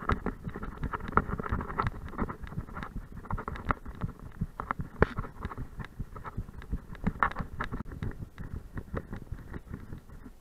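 Rapid, irregular thumping and jostling from a camera strapped to a running dog's back: the dog's footfalls and the mount knocking about with each stride, with some wind on the microphone.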